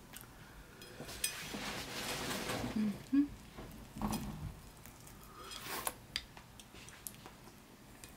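Stewed beef being pulled off the bone by hand in a plate of sauce: wet tearing and squishing, with a few light clicks.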